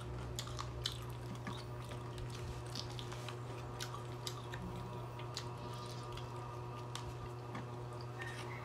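Close-up chewing and wet mouth sounds of fried chicken being eaten, with many small irregular clicks and smacks, over a steady low hum.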